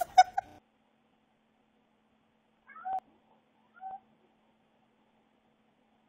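A cat meowing twice: two short meows about a second apart, after a brief clipped bit of a voice at the very start.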